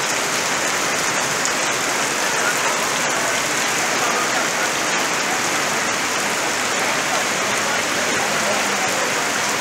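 Heavy rain pouring down in a steady, dense hiss on the street and surrounding surfaces, with a few faint sharp drip ticks.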